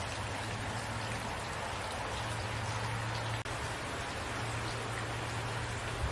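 Steady rain falling and pattering on surfaces, an even hiss of drops, with a low steady hum underneath and a single faint tick about halfway through.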